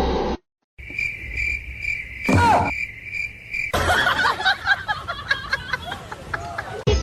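Crickets chirping, a high chirp repeating about three times a second for about three seconds; after that a busier jumble of other sounds takes over.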